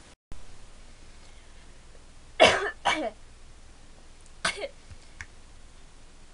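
A woman coughing: two coughs in quick succession, then a third about two seconds later.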